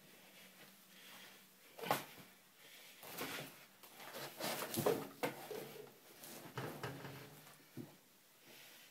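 Rustling and knocking from a person moving about right next to the camera, with one sharp knock about two seconds in and the loudest rustling in the middle.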